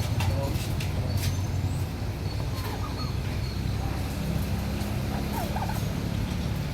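Farm birds calling in short, quick notes several times over a loud, steady low hum.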